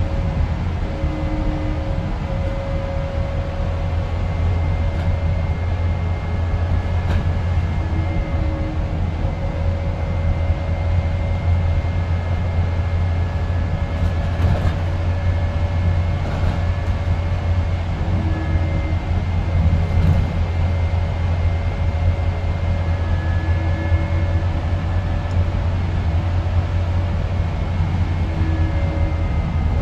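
Interior noise of a New Routemaster diesel-electric hybrid double-decker bus on the move: a steady low drone from the drivetrain and road, with a thin high whine over it. A few light rattles come near the middle.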